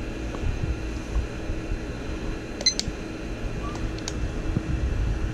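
A digital meat thermometer's handheld receiver gives a short electronic beep about two and a half seconds in, with a light button click a little later, over a steady low hum.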